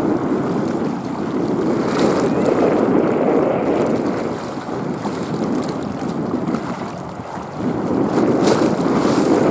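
Wind buffeting the microphone outdoors: a low, rumbling rush that swells and eases, dropping back about seven seconds in before rising again.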